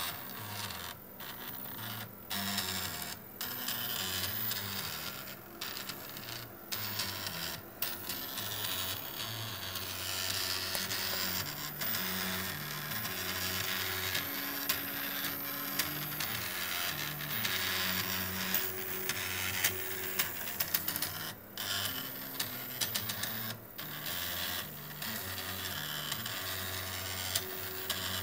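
Stepper motor on a RepRap Prusa II 3D printer's X axis, driving the carriage back and forth by toothed belt. Its whine steps between pitches as the speed changes, with several brief stops between moves.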